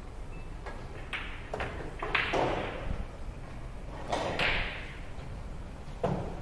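Pool shot: the cue tip strikes the cue ball, then balls click together and a ball drops into a pocket. It comes as a string of sharp knocks, the loudest about two and four seconds in, each with a brief ringing tail.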